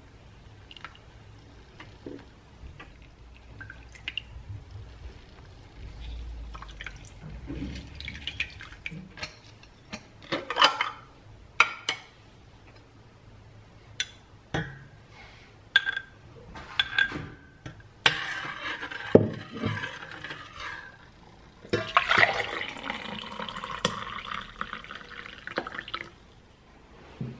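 Scattered clinks and knocks from a stainless steel saucepan and kitchen things being handled. Near the end, hot tea is poured from the saucepan into a tall glass, a steady pouring that lasts about four seconds.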